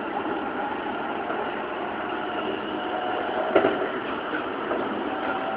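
Keikyu New 1000 series electric train running along the line, heard from inside the car: a steady rumble of wheels on rail, with a single sharp knock about three and a half seconds in.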